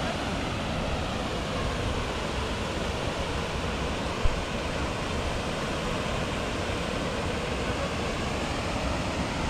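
Steady rush of water pouring from a hydroelectric dam's outlet into the pool below, an even roar of falling water. A brief thump about four seconds in.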